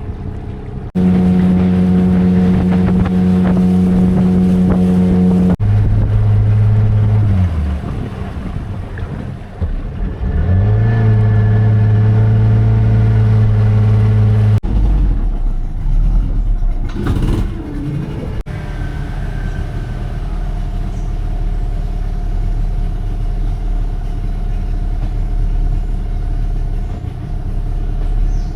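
Boat engine running steadily with a strong low hum, its pitch falling as it throttles down about six seconds in, then running steadily again. The sound changes abruptly several times and settles into a lower, quieter hum in the second half.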